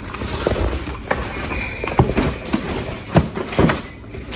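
A few sharp knocks and clicks over a rustling haze, the loudest a little past the middle.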